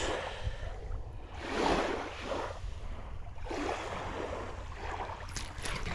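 Small waves washing in against the shore, several swells rising and falling a second or two apart. Wind rumbles on the microphone throughout.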